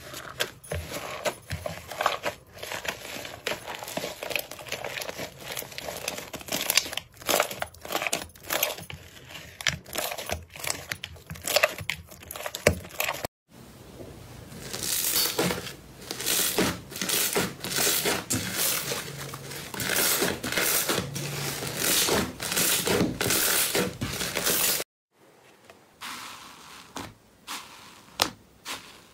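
Slime squeezed and kneaded by hand: a dense run of wet crackling and popping, then after a sudden break a regular series of loud squelches a little more than one a second, then after another break a few softer pokes near the end.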